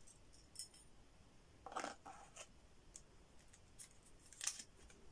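A few faint clicks and rustles of hands handling a Yuma safety razor and its blade while loading it, against near silence.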